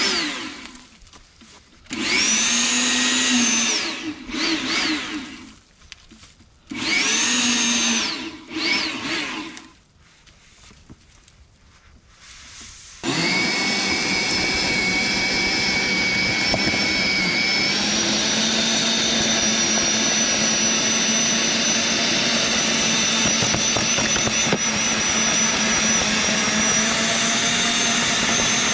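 Sun Joe TJ604E 13.5-amp electric tiller's motor and tines running in short bursts of a few seconds, the whine rising and falling with each. About halfway in it starts running steadily, tilling medium-hard clay, its whine shifting a little higher partway through.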